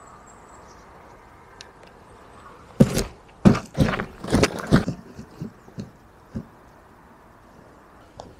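A cardboard box tumbling down a grassy bank: a quick run of thumps and knocks as it bounces, followed by a few lighter bumps as it rolls to a stop.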